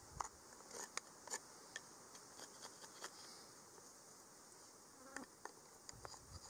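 Faint steady insect buzz, with scattered small clicks and ticks.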